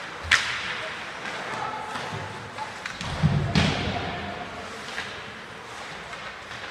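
Sharp cracks from ice hockey play (puck, sticks and boards being struck) echoing through the rink. One comes about a third of a second in and a louder one about three and a half seconds in, over faint spectator voices.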